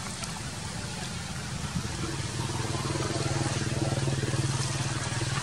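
A steady, low engine hum comes in about two seconds in and grows louder, over a constant background hiss.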